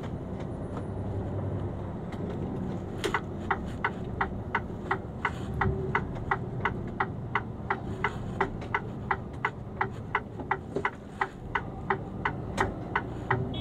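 Turn-signal indicator ticking steadily in a Mercedes-Benz Actros truck cab, about three ticks a second, starting about three seconds in, over the low hum of the running engine.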